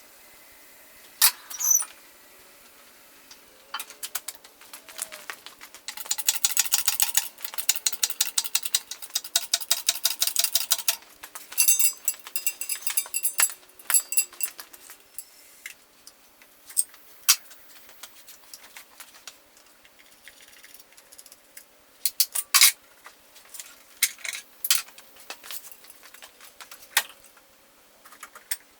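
Metal tools clinking and rattling during engine installation work, with a long run of fast, even ratchet-like clicking about six seconds in and a shorter run just after.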